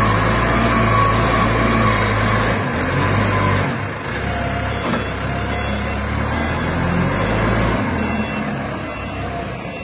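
Small SYZG wheel loader's diesel engine running under load as it drives its bucket into a sand pile and lifts a full scoop. The engine note shifts a few times along the way.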